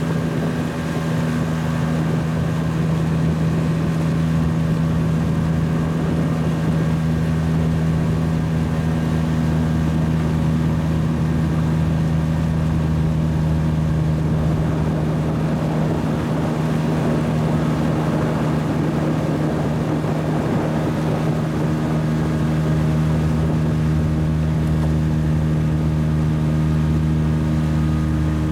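Boat motor running steadily at constant speed, with the hiss of water and wind over it, while the boat is underway.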